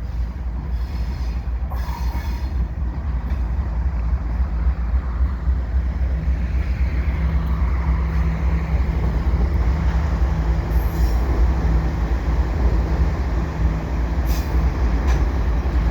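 Freight train led by CN's GE C44-9W and ES44AC diesel locomotives passing with a cut of hopper cars: a steady heavy rumble with a low engine hum. Brief high wheel squeals come a few times.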